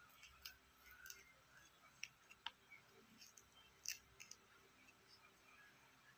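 Faint, scattered crisp snaps and clicks of a small knife cutting through fresh green bean pods, the sharpest about two seconds and four seconds in, over quiet room tone.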